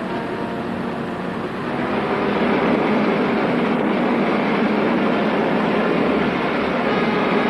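A steady, dense roar from an old film soundtrack that swells louder about two seconds in and cuts off suddenly at the end.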